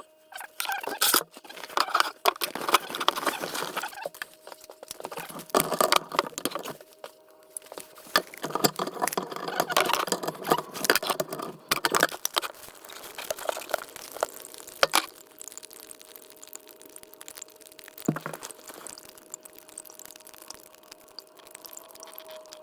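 Rattling, scraping and knocking of tools and fittings as a pipe is being disconnected under a sink, in irregular bursts with sharp clicks. About twelve seconds in the handling gets much quieter, leaving only a few isolated knocks.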